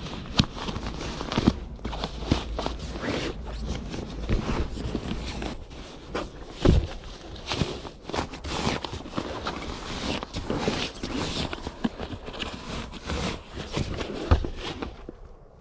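Nylon sleeping bags and their stuff sacks being handled: continuous rustling and crinkling of fabric with scattered knocks.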